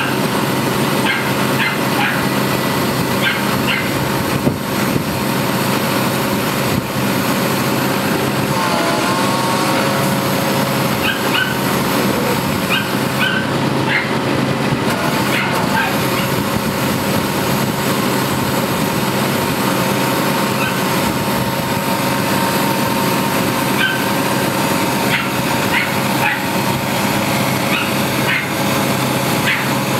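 Heavy diesel engine running steadily at a constant level, working the lift as a narrow-gauge brake van is hoisted on straps. There is a brief rise in pitch about nine seconds in. Short, sharp high sounds come now and then over the engine.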